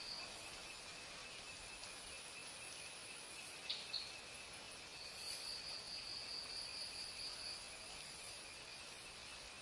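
Faint, steady high-pitched insect trilling, typical of crickets, with one trill dropping out and returning partway through. Two short, sharp chirps come close together near the middle.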